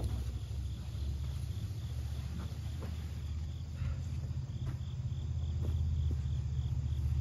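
Crickets chirping in a steady pulsing rhythm over a constant low rumble, with a few light knocks and scrapes from a plywood sheet being handled.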